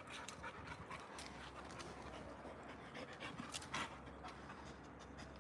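A pit bull-type dog panting faintly, with one louder breath or sniff a little before four seconds in.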